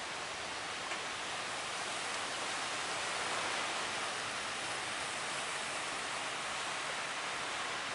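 Steady rush of surf breaking on the shore, swelling a little a few seconds in.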